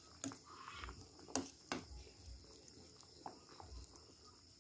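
Several sharp clinks of a metal ladle against a cooking pot while boiling vegetable soup is stirred. The strongest pair comes about a second and a half in.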